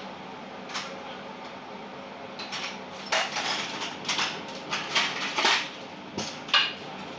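Metal pots and utensils clattering and clinking, starting a couple of seconds in and running in quick irregular knocks, as the stainless steel stockpot's lid is handled and lifted. A steady low hum sits underneath.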